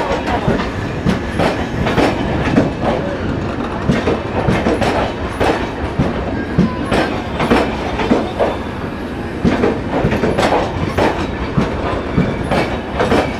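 Passenger coaches of an arriving express train rolling past, their wheels clattering over the rail joints in an uneven run of clicks and knocks, a few a second, over a steady rumble and rattle.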